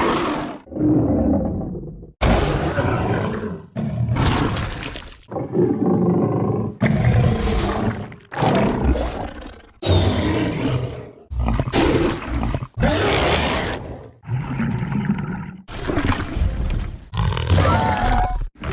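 Monster roar sound effects played one after another: a quick series of short, harsh roars and growls, each lasting about a second, with brief gaps between them.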